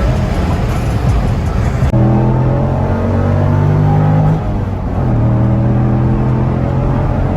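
Car engine running at a steady pace, a droning note with a drop in level and pitch about four and a half seconds in, like a gear change. Before about two seconds in it is a rougher rumbling noise that cuts off abruptly.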